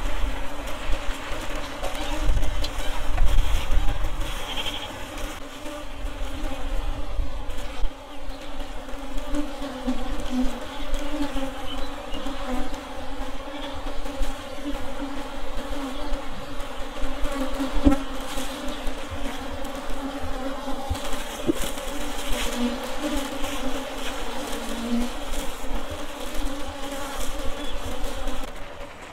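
Honey bees buzzing in a steady hum that wavers as single bees fly close past. The colony has been disturbed while its comb is cut out of a log hive.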